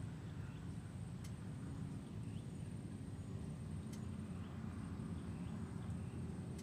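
Outdoor nature ambience: a steady high-pitched insect drone, faint short bird chirps every second or so, and a low steady rumble, with two faint clicks.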